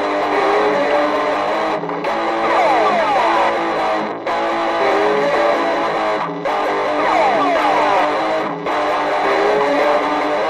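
Experimental noise-rock made entirely on guitar: a dense, layered guitar texture with repeated falling pitch slides. It cycles in a loop that drops out for a moment about every two seconds.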